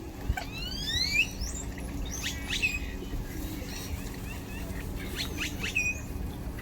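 Small birds chirping and calling, with a few rising whistled calls about a second in and quick sharp chirps midway and near the end, over a steady low background rumble.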